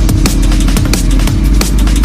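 Electronic drum and bass music with a fast, steady beat over heavy bass.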